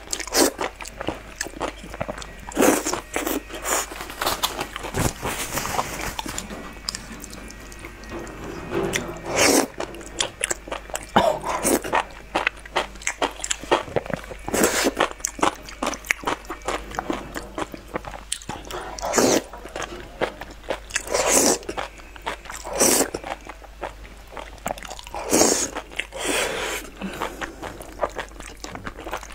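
Close-miked eating sounds: noodles in chili sauce being slurped and chewed with the mouth open and wet, with a loud short slurp every few seconds.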